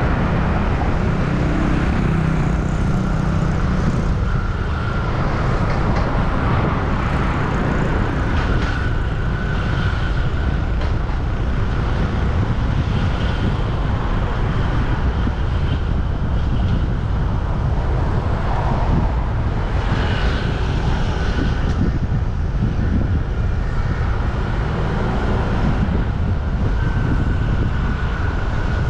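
Street traffic running steadily, with a constant low rumble of passing vehicles and engine tones that come and go.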